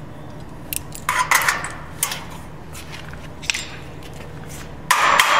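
Scattered light metallic clicks and knocks from steel framing and tools being handled, then a louder metal clatter starting near the end.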